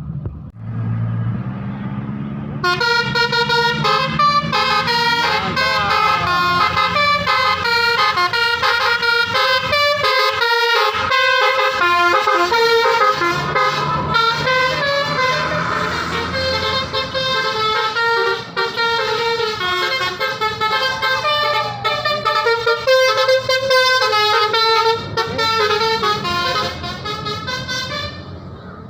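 Bus 'telolet basuri' musical air horn playing a quick stepping tune of several notes for about 25 seconds, starting a few seconds in and stopping shortly before the end. A bus engine runs low underneath at the start.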